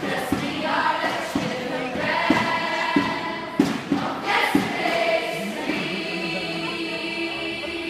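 A large group of girls' voices chanting in unison as a speech choir, with sharp thumps in the first half and a long held vowel near the end.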